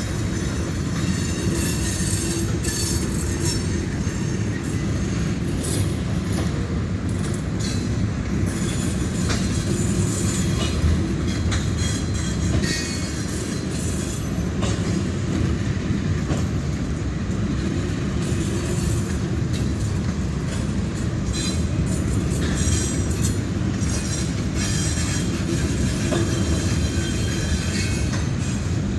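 Freight train cars rolling steadily past: a continuous low rumble of wheels on rail, with clatter and intermittent high-pitched wheel squeal and screech.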